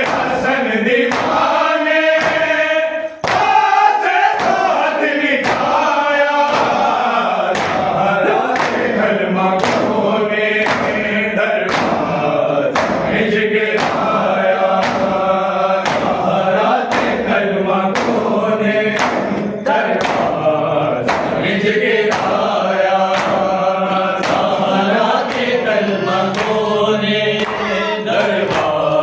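Men's voices chanting a noha, a Shia mourning lament, together as a group. Rhythmic hand strokes of matam (chest-beating) keep the beat at an even pace, about one stroke a second.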